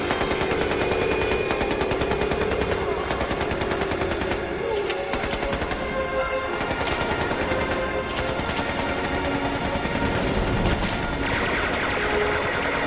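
A staged film gun fight: sustained rapid gunfire like machine guns, with louder single shots standing out now and then, over music.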